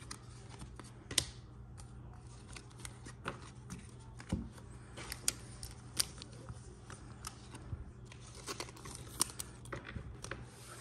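Trading card pack being handled: its foil wrapper torn and crinkled while the cards are shuffled, a run of faint, scattered clicks and crackles.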